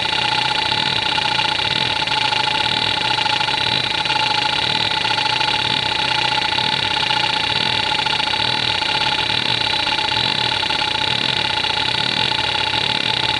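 Conner Peripherals CFS425A 425 MB single-platter hard drive running, with a steady whine and the continuous chatter of its heads seeking back and forth across the platter under the hdmotion seek test.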